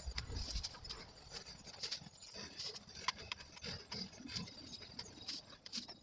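Hedge branches and bramble stems being cut and pulled out by hand: rustling leaves and twigs snapping and crackling at uneven intervals.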